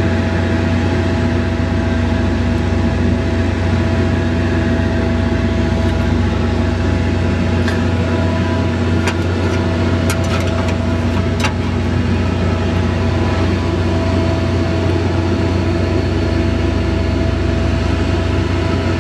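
An engine idling steadily with a low, even hum. A few brief clicks come about halfway through.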